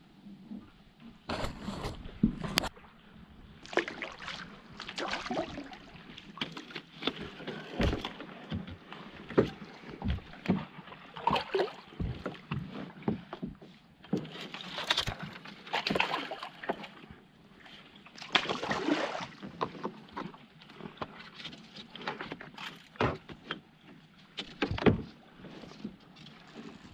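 Kayak paddling through a narrow, snag-filled creek: irregular paddle splashes and drips, broken by sharp knocks of the paddle against the hull.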